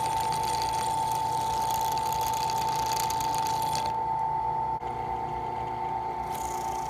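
Electric drill with a hot bit running with a steady high whine; a hiss over the whine stops about four seconds in and comes back near the end.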